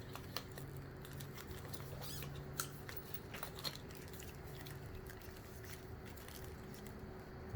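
Hands working a plastic wiring connector loose: faint scattered clicks and rustles, one sharper click a little past halfway, over a steady low hum.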